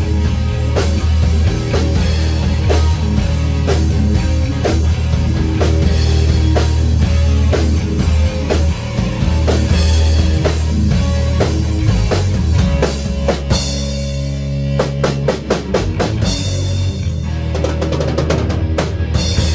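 Rock band playing live in a rehearsal room: drum kit, electric bass and electric guitar driving a heavy-metal riff, with a run of rapid drum hits near the end.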